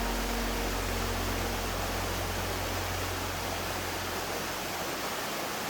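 Steady rushing water of a mountain stream. The tail of background music fades out in the first couple of seconds.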